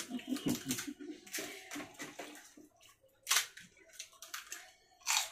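Close, wet eating and handling sounds of fuchka: crisp shells and tamarind water being filled and eaten, with two short sharp noises about three and five seconds in.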